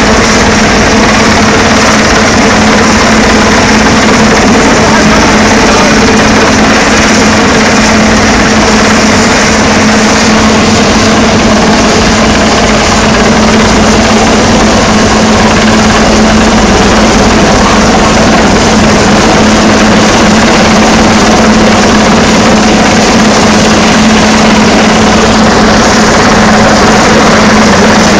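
Coastguard helicopter hovering close overhead during a winching drill: loud, steady rotor and turbine noise with a constant low hum.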